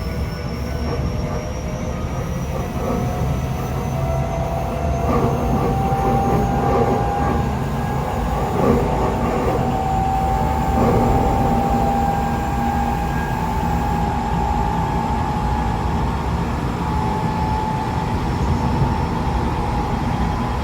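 Tokyo Metro 8000-series motor car running under way, its traction motor and gear whine rising slowly in pitch as the train gains speed over the rail rumble. The whine is heard as two slightly mismatched, discordant tones, which the uploader puts down to only one axle of the bogie having had its wheels re-profiled.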